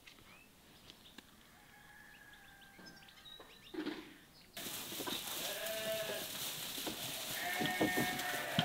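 Sheep bleating, starting about halfway in: a few drawn-out bleats among the flock, with some knocks. Before that there is only faint background.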